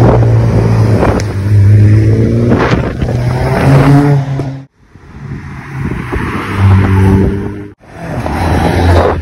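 Car engines accelerating away one after another, the exhaust note climbing in pitch and dropping back at gear changes. The sound breaks off suddenly twice.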